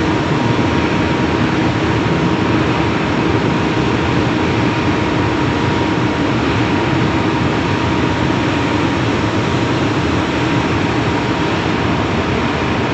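BHEL 4850 kW, 6600 V wound-rotor slip-ring induction motor running steadily: a loud constant rush of cooling air with a lower hum and a thin steady whine over it.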